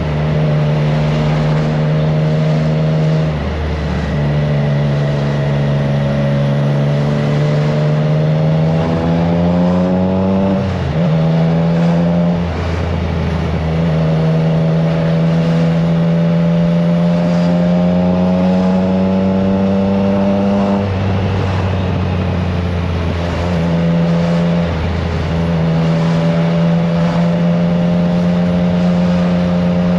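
Triumph Trident 660's inline three-cylinder engine through an aftermarket FireTong exhaust, heard from the rider's position while riding at road speed. The engine note holds steady, rises slowly in places and dips briefly several times as the throttle changes, with wind noise on the microphone.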